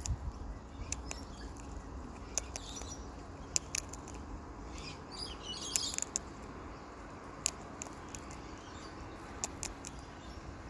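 Sulphur-crested cockatoo cracking sunflower seeds with its beak from a hand, giving sharp, irregular clicks a second or two apart. Faint bird chirps come in briefly about three seconds in and again around five to six seconds.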